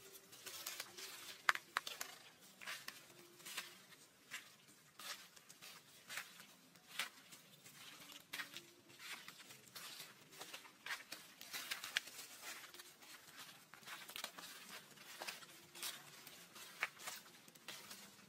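Dry fallen leaves crunching and rustling underfoot in irregular crackles as someone walks through the leaf litter.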